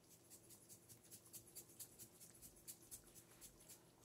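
Salt shaker shaken over a pan of sauce: faint, quick ticking, about four to five shakes a second, stopping near the end.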